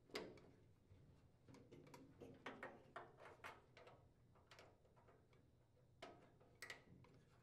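Faint, scattered clicks and light rustling of plastic wire-harness connectors being handled and pushed together, with a loose cluster of small clicks in the middle and a couple more near the end.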